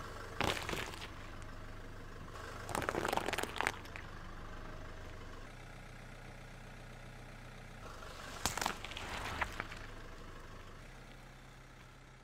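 A car engine idling with a low, steady hum while the tyre rolls over and crushes objects on asphalt. There are three bouts of crackling and crunching: about half a second in, around three seconds in, and about eight and a half seconds in.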